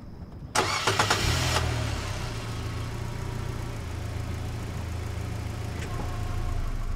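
A car engine being started: about half a second in, the starter cranks briefly and the engine catches. It then settles into a steady idle.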